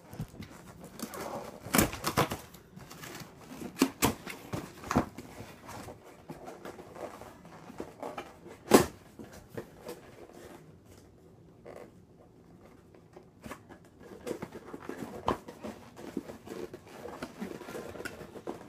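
Scooter parts and packaging being handled: scattered clicks and knocks with light rustling, the sharpest knock a little before halfway.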